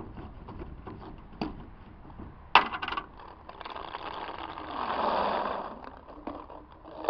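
Paintballs poured from a plastic bottle into the plastic hopper of a Tippmann 98 Custom paintball gun: a dense rattle of balls tumbling in that builds and fades over about two seconds. It comes after a few sharp clicks as the bottle is opened.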